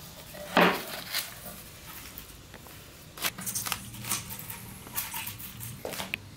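Packaging being handled among flat-pack furniture boards: irregular rustles and light taps of foam, plastic and cardboard, the sharpest about half a second in.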